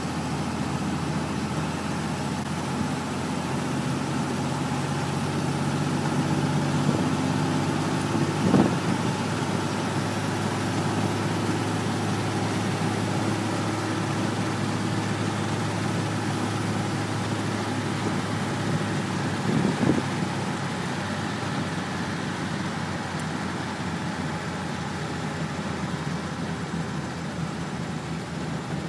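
Willys-Knight sleeve-valve engine running steadily as the car drives along, heard from inside the car together with road noise. There are two brief knocks, one about a third of the way in and another about two-thirds in.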